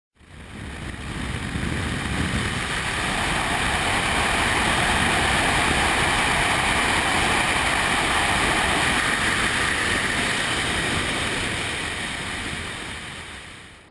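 Steady rushing wind and road noise on a camera mounted on a moving vehicle's bonnet. It fades in over the first second or two and fades out near the end.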